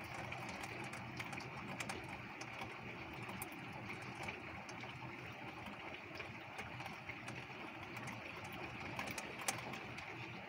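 Heavy rain falling steadily, with many sharp ticks of raindrops striking close by and one louder tick near the end.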